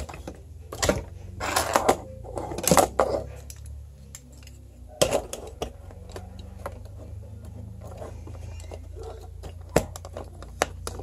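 Hard plastic toy figures and their parts being handled and set down: scattered clicks, knocks and clatters, several in quick succession in the first three seconds, over a low steady hum.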